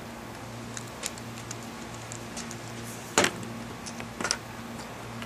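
A few sharp metallic clicks and knocks as a screwdriver works on the cover bolts of an automatic transmission valve body, the loudest about three seconds in and a smaller cluster a second later, over a steady low hum.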